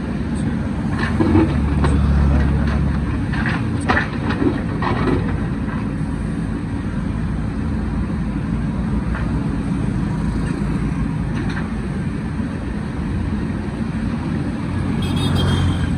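Diesel engine of a JCB backhoe loader running steadily while it works in the riverbed. It grows heavier under load from about one to three seconds in, and several knocks and clanks come in the first five seconds.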